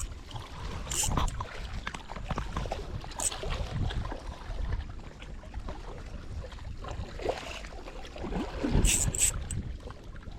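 Wind rumbling on the microphone, with a few sharp clicks, a cluster of them near the end.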